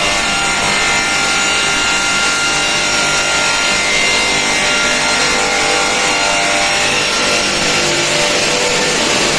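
Multi-blade rip-saw machine running steadily while sawing through wood slabs.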